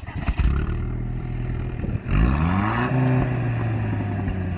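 Audi A4 B7 2.0T turbocharged four-cylinder engine and exhaust running, then revved about two seconds in, the pitch rising and holding at the higher engine speed.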